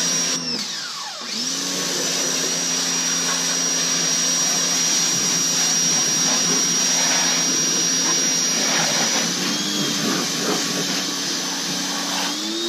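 Greenworks 1600 PSI electric pressure washer running and spraying water: a steady motor whine under a hissing spray. About half a second in it cuts out and winds down, then starts again about a second later, and its pitch shifts near the end.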